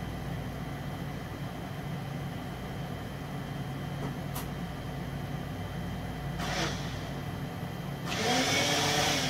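A steady low hum runs throughout. Over it a person breathes out hard: a short puff about six and a half seconds in, then a longer, louder voiced sigh near the end, from the burn of the hot gum.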